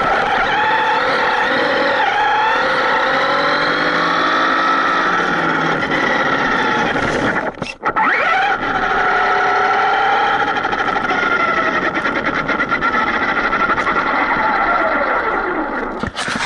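Traxxas Rustler VXL RC truck's electric brushless motor and gear drive whining, the pitch rising and falling as the throttle is worked, heard up close from on board the truck. The whine drops out briefly about halfway through, then picks up again.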